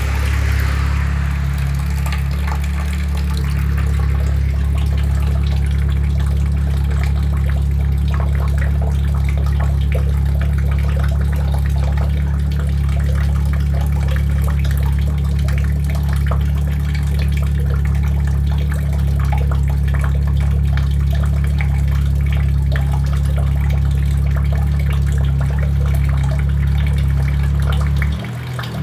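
Haier heat-pump air conditioner in its defrost cycle: a steady low compressor hum with a watery hiss and fine crackling above it, from refrigerant flow and melting frost. The hum drops out near the end.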